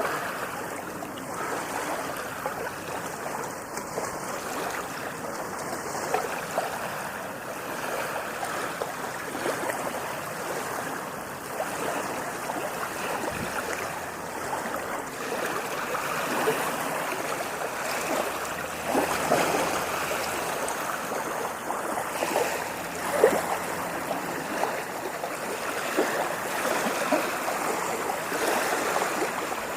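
Ocean waves washing and lapping, a continuous splashy water noise that swells a little now and then.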